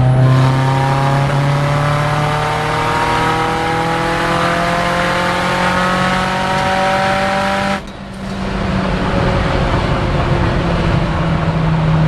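Turbocharged 4G63 inline-four of a built 2003 Mitsubishi Lancer Evolution VIII, heard from inside the cabin, pulling hard in fifth gear, its note rising steadily as the car accelerates from about 90 mph. About eight seconds in the note drops away abruptly in a sputter, a little miss that the owner puts down to running a little lean while the engine is cold.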